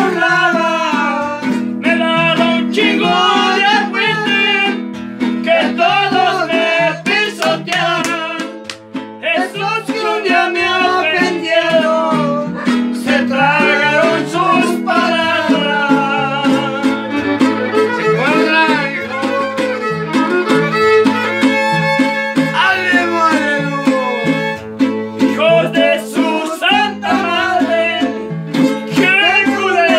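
A string trio playing: a violin carries a wavering melody over steadily strummed guitars and a repeating bass line.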